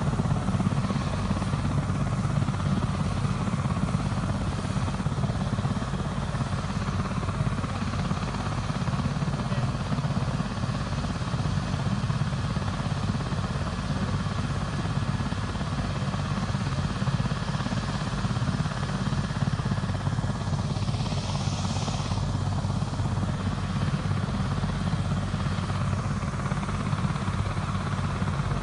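Helicopter on the ground with its engine and rotor running, a steady drone that does not change.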